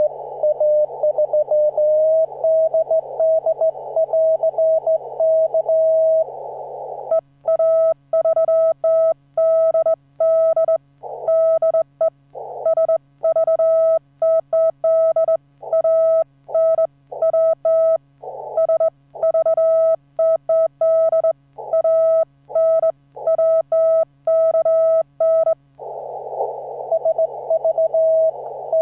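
Morse code on a 15-metre amateur band CW receiver. For the first several seconds a received CW tone is heard in hiss through a narrow filter. Then, from about a quarter of the way in until near the end, the operator's own hand-keyed Morse comes through as a clean sidetone with silent gaps between characters, before a received signal in hiss returns. A faint low hum runs underneath.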